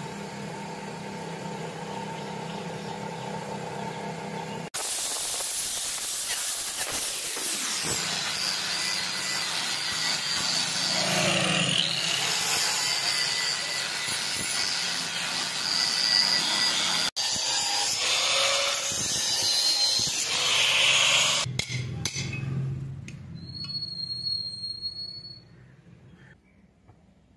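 Electric grinder motor running steadily with no load. About five seconds in, the abrasive disc starts cutting into a steel bicycle sprocket, a loud grinding of metal that goes on for about fifteen seconds with a brief break. It then stops, and the sound fades away near the end.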